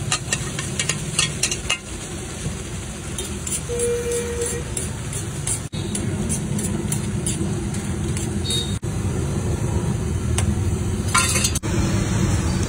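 Metal spatula clinking and scraping on a large tawa as chole is poured out and stirred, in short sharp strikes, over a steady rumble of street traffic.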